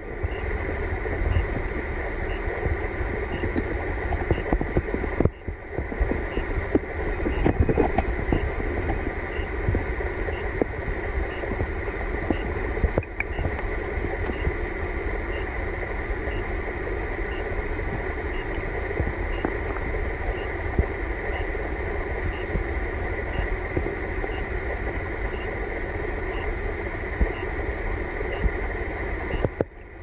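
Fast-flowing stream water heard underwater through a submerged camera: a steady rushing with a strong low rumble.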